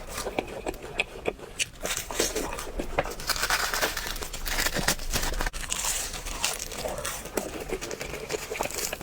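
Close-miked crunching and crackling of crispy fried food being bitten and chewed, a dense run of irregular crisp cracks.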